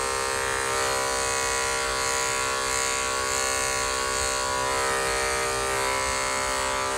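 Electric pet grooming clippers running with a steady buzz as they shave a Shih Tzu's coat around the head.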